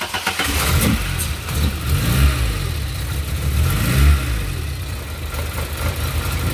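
Four-cylinder engine of a VW Mk1 running, revved up and back down twice, about two and four seconds in, then settling toward idle.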